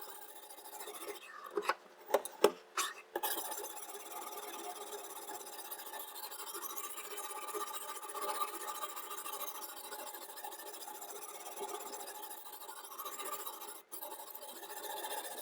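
Diamond sharpening stone rasping along a chef knife's edge on a guided knife-sharpening system, with a few sharp clicks and knocks about two seconds in.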